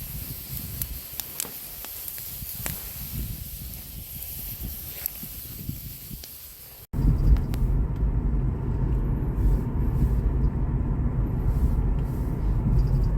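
Wood fire crackling, with sharp pops over a steady hiss from shellfish grilling on it. About seven seconds in it cuts suddenly to a steady low rumble of a car's engine and road noise heard from inside the car.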